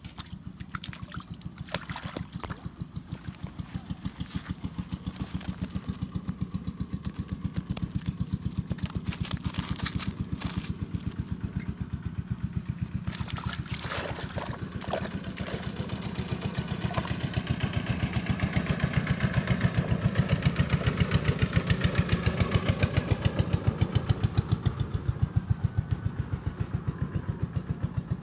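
An engine running steadily with a regular, rapid thumping that grows louder in the later part, with a few sharp clicks.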